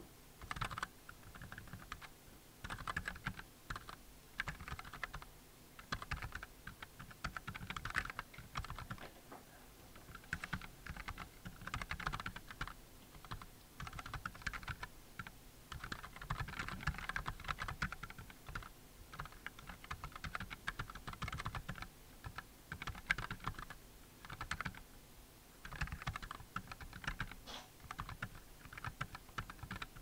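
Two-handed typing on an ON THE 15 mechanical keyboard with TECSEE Pudding switches and Doys PBT keycaps. Quick runs of key clacks follow one another, with short pauses between them.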